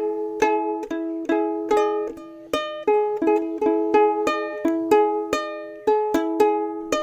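Background music: a plucked-string tune of short, ringing notes, about two or three a second.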